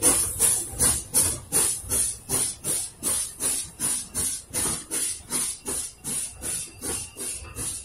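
USATC S160 2-8-0 steam locomotive 'Big Jim' working hard, its exhaust chuffing in an even beat of about two and a half beats a second with a hiss on each beat, slowly fading as the train draws away.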